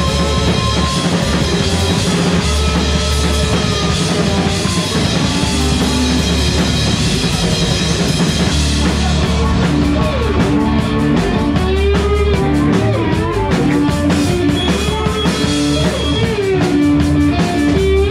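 A live band playing rock music: drum kit with a steady beat and guitars, with sliding held notes coming in about halfway through.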